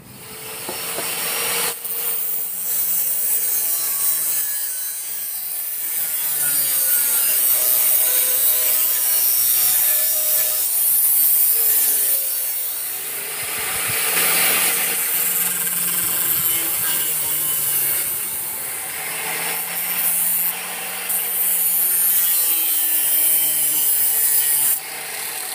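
Angle grinder with a cutting disc slicing through circular saw blade steel. The disc on the metal makes a continuous harsh hiss, and the motor's whine dips and recovers as the cut loads and eases.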